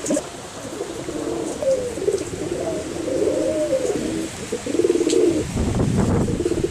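Domestic pigeons cooing in their coops, several low, wavering coos overlapping. Near the end a louder low rumble comes in under the cooing.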